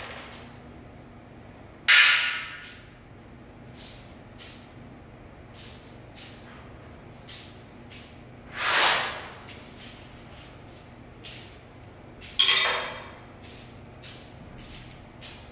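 Objects sounded by hand in a free improvisation: a sudden hit about two seconds in that rings briefly, a swelling swish that rises and falls near the middle, and another sudden ringing hit late on, with faint irregular ticks between.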